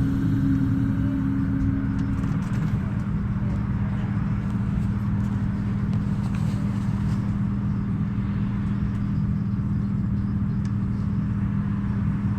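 Ruhrbahn M8D-NF tram's electrical equipment giving a steady low hum over a rumble, with a higher tone that stops about two seconds in.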